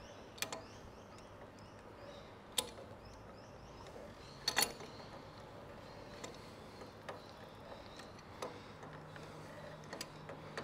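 A few sharp metallic clicks and taps, the loudest a double click about four and a half seconds in, as a fitting on an E61 espresso machine group head is tightened by hand. A faint low hum comes in near the end.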